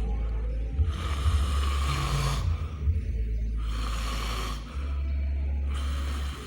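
Sleeping baby snoring: three noisy breaths, each about a second long and roughly two seconds apart, over a steady low rumble. The uploader puts the snoring down to a wrong side-lying sleep position.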